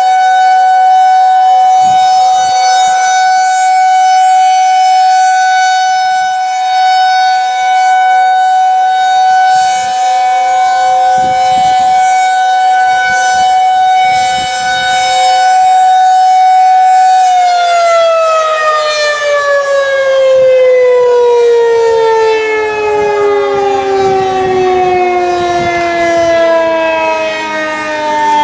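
Federal 2001-SRNB outdoor warning siren sounding its steady alert tone, then, about two-thirds of the way in, winding down with a smooth falling pitch as it is shut off at the end of its test run.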